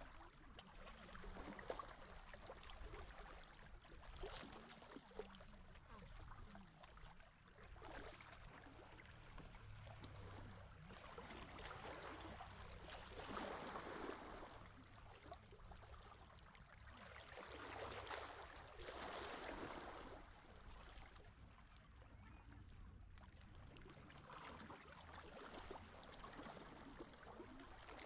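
Small sea waves washing softly onto the shore, faint, swelling and fading every few seconds, over a steady low rumble.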